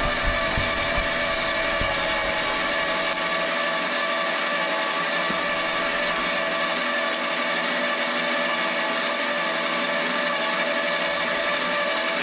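Electric meat grinder running with a steady whine.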